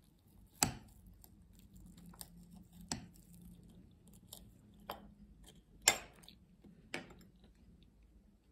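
Metal knife and fork cutting through a sticky, crisp yakgwa on a china plate, with several sharp clinks of cutlery against the plate, the loudest about a second in and about six seconds in.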